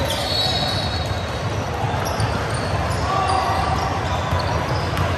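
Echoing indoor game noise: a ball bouncing on a hard court amid distant voices in a large hall.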